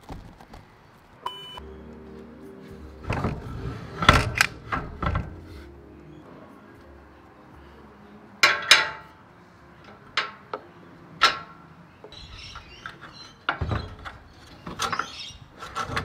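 Sharp metallic knocks and clinks as a steel roof rack basket and its mounting hardware are handled and fitted onto roof crossbars, with a light rattle near the end. Faint background music runs underneath.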